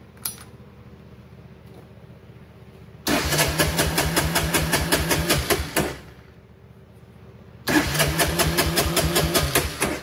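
1987 Honda ATC250ES Big Red's electric starter cranking the engine twice, a longer try then a shorter one, with rapid even pulses. The engine doesn't catch, and the owner suspects the spark plug.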